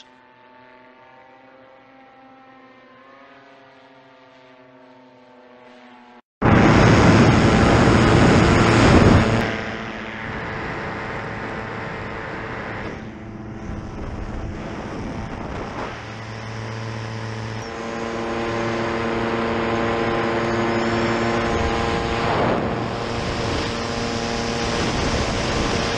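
Paramotor engine and propeller running in flight. For about six seconds a faint, distant drone holds a steady pitch. After a sudden cut it is loud and close, heard from the pilot's harness with a rushing noise over it, dropping in level about ten seconds in and growing louder again later.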